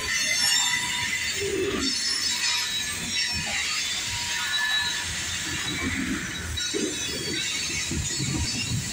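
Canadian National freight train cars rolling past with a steady rumble. Scattered short, high-pitched wheel squeals ride over it.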